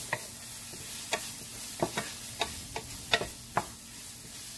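Wooden spoon stirring onions and tomatoes frying in a sauté pan: a steady sizzle with about eight irregular knocks and scrapes of the spoon against the pan.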